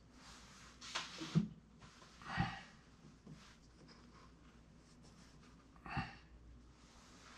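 Wooden blocks handled and set down on a wooden base: two sharp knocks about a second in, then short breathy puffs twice, near the middle and near the end.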